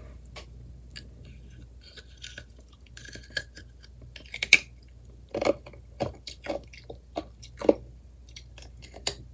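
A person chewing a small piece of ice in the mouth, with irregular crunches that grow louder in the second half.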